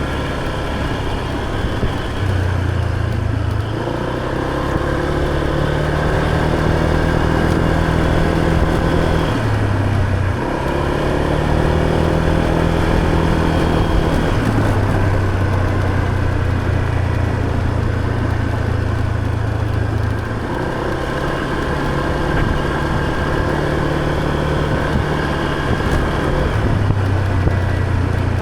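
Motor scooter engine running while riding, its note stepping up and down several times as the throttle and speed change.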